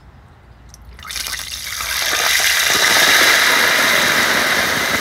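Octopus going into a large wok of hot oil: a deep-frying sizzle that starts about a second in and builds to a loud, steady hiss.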